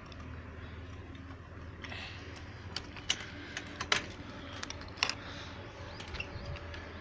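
Metal padlock and key ring clinking against the hasp of a wire-mesh pigeon-loft door as it is locked: a run of sharp metallic clicks starting about two seconds in, with a few louder snaps in the middle.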